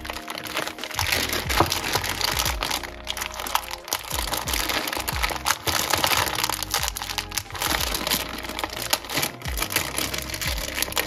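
Background music, with thin plastic bags crinkling as they are handled and opened.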